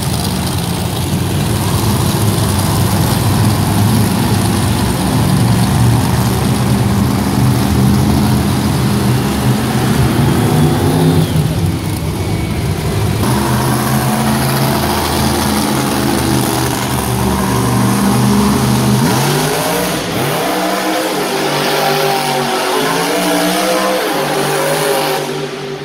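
Monster truck supercharged V8 engines running and revving. About nineteen seconds in, the deep rumble drops away and a higher, rising rev carries on.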